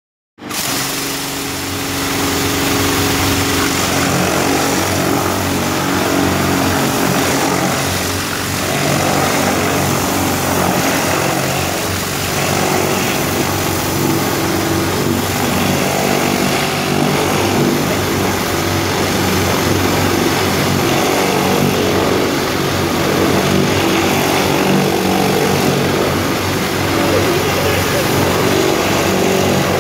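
A pressure washer runs steadily: a motor drone under the loud hiss of high-pressure water spraying from an undercarriage cleaner's spray bar against the minivan's underside and the pavement. The sound starts about half a second in.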